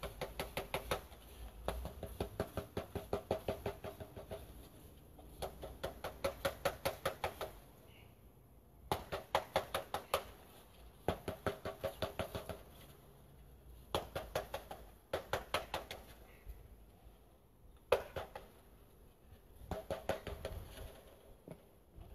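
Screened wooden package of honey bees shaken hard over an open hive to dump the bees in: repeated bursts of rapid knocking, about seven knocks a second, each burst one to two seconds long.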